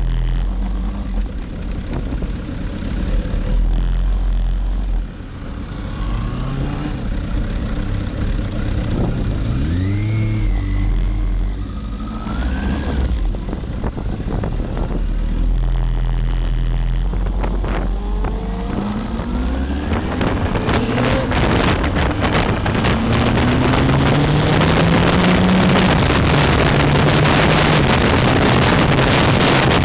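Motorcycle engine running and accelerating, its revs rising several times as it pulls through the gears. From about two-thirds of the way in, heavy wind rushes over the microphone as speed builds.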